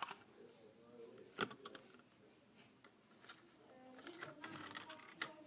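Faint handling noises as a headset and its packaging are unpacked: a few sharp clicks and taps, then rustling and scraping about four seconds in.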